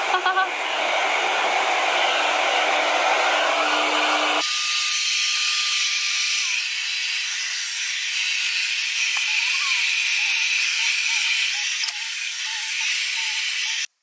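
Parlux Alyon hair dryer running, a steady rush of blowing air. About four seconds in the sound changes abruptly, losing its low end, and it cuts off suddenly near the end.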